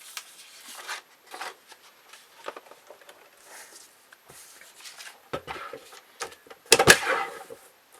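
Old comic book paper rustling and being handled as a page is lined up on a paper cutter, then a sharp clack of the cutter coming down a little under seven seconds in.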